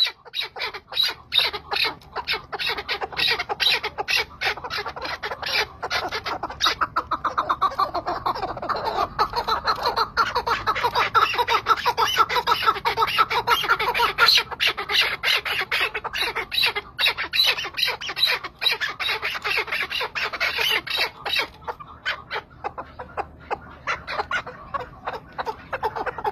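Caged chukar partridge calling: a long run of rapid, repeated chucking notes that carries on almost without a break.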